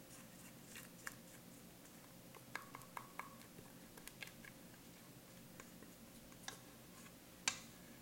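Silicone spatula scraping cake batter out of a stainless steel mixing bowl: scattered faint clicks and taps of the spatula and bowl, with one sharper knock near the end.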